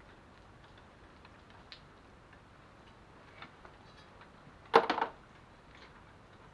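Hand tools and metal parts at an engine's exhaust manifold: faint, scattered light ticks, then a short burst of sharp metallic clatter, three or four knocks close together, a little under five seconds in.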